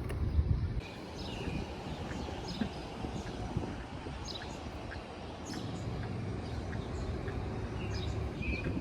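Birds chirping, short calls every second or so, over a steady low rumble. A louder low rumble fills the first second.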